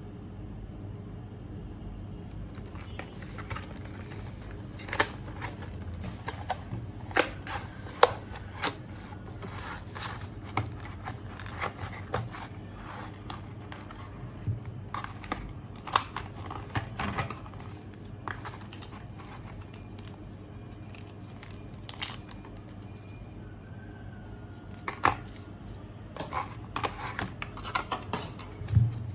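Retail packaging of a portable hard drive being opened and handled: scattered sharp clicks, taps and short crinkling rustles of plastic and cardboard, over a steady low hum.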